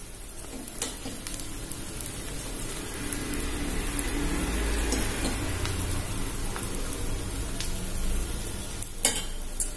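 Dosa batter sizzling steadily on a hot iron dosa tawa as prawn masala is spooned on top, with a few light clicks of a steel spoon, the sharpest two near the end.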